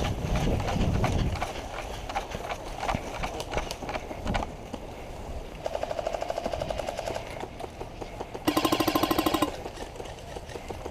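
Airsoft electric guns firing full-auto bursts, a rapid even rattle: a fainter burst about six seconds in and a louder burst of about a second near the end. Before them, for the first few seconds, come footfalls and gear rustling as players move.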